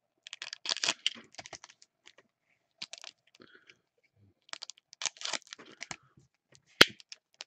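Foil trading-card pack wrappers crinkling and crackling in irregular bursts as gloved hands handle and stack the packs, with one sharp click near the end.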